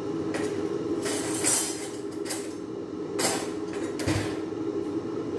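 Kitchenware being handled: a run of short rustling scrapes and clinks of pans or dishes, with a low thump about four seconds in, over a steady hum.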